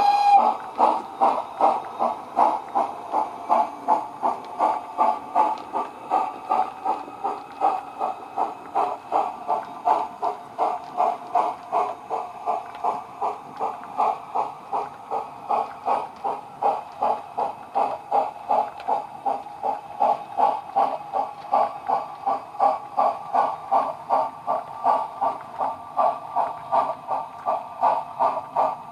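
Digital sound decoder in a Bachmann OO-gauge ROD 2-8-0 model locomotive playing steam exhaust chuffs in a steady, even rhythm through the model's small loudspeaker, with a whistle cutting off right at the start.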